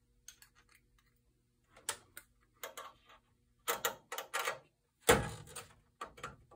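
Small clicks and taps of metal needle-nose pliers and a hybrid resistor-array chip being set onto its standoffs on a circuit board, with the loudest knock about five seconds in as the chip is pressed down. A faint steady hum lies underneath.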